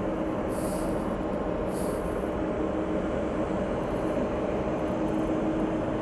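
Jet airliner engines running at a steady drone, with a constant hum and a few steady tones, as heard from the airport apron. Two brief high hisses about half a second and two seconds in.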